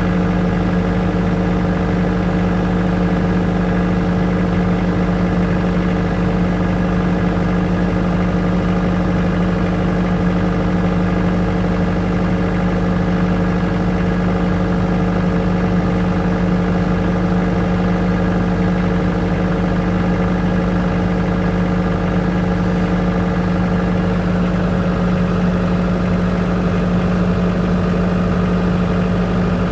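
Engine-driven generator running steadily at a constant speed, an even hum with a strong low tone that does not change.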